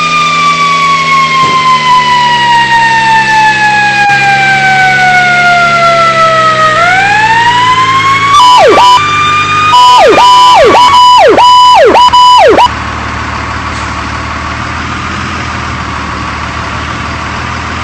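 Fire engine siren: a slow wail falling steadily in pitch for several seconds, then rising again, then a louder stretch of quick, sharp pitch drops repeated about five times. It cuts off suddenly, leaving the apparatus's engine running steadily underneath.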